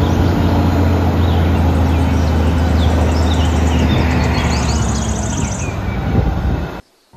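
Eight-wheel tipper lorry's diesel engine running steadily with a low hum while its body is raised for tipping, with birds chirping. The sound cuts off abruptly near the end.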